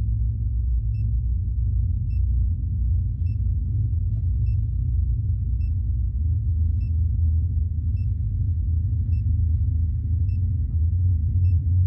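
Low, steady droning rumble of horror-film sound design, with a faint high ping repeating about once a second.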